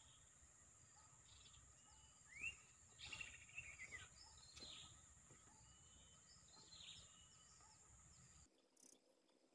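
Faint natural ambience: scattered wild bird chirps and short rising whistled calls over a steady high-pitched hiss. The calls are loudest from about two and a half to four and a half seconds in, and the background drops away abruptly near the end.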